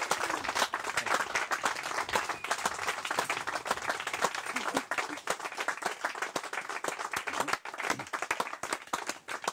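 A small crowd applauding, a dense, irregular patter of hand claps that keeps up throughout.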